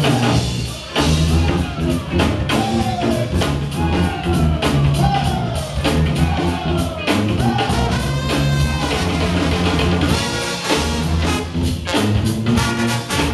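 Live brass band playing over a drum kit, with trombones, trumpets and a sousaphone, and a frontman singing into a microphone; a run of falling phrases repeats about once a second through the middle.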